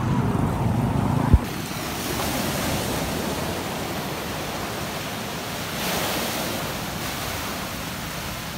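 Sea surf breaking and washing up a sandy beach, a steady rushing hiss that swells as a wave breaks about six seconds in. Before that, a low rumble ends in a sharp click about a second and a half in.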